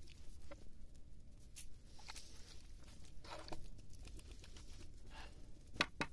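Faint scattered crackles and clicks from cooking over an open wood fire: the fire under a large pot of boiling chicken, with a wooden stick in the pot. Two sharper clicks come near the end.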